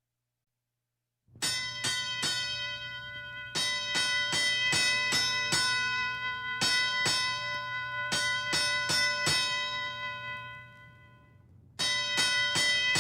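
Bells struck rapidly and repeatedly, each stroke ringing on at the same fixed pitches, starting about a second in. The ringing fades away near the end, then starts again abruptly with a fresh run of strokes.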